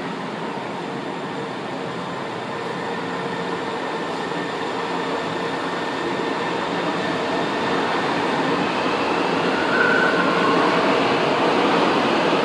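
São Paulo Metro Line 1 train pulling out of the station, its running noise growing steadily louder as it picks up speed.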